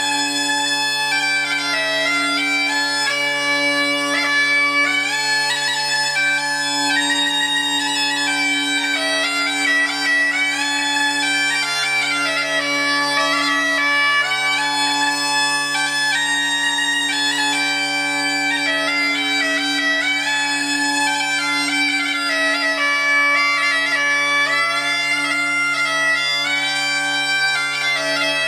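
Bagpipes playing a tune: the chanter melody moves continuously over two steady drones an octave apart.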